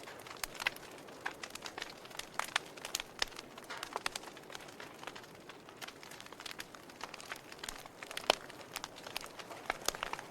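Wood fire crackling in a fireplace: irregular sharp snaps and pops over a soft hiss, with one louder pop about eight seconds in.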